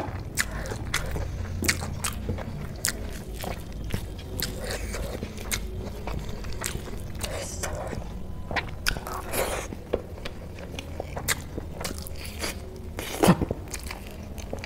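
Close-miked chewing and wet mouth clicks of someone eating rice with black-eyed pea curry by hand, with a louder mouth sound a little over a second before the end.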